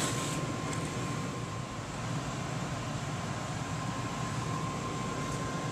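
Steady background hiss and hum with a faint, steady high tone, and one light click under a second in.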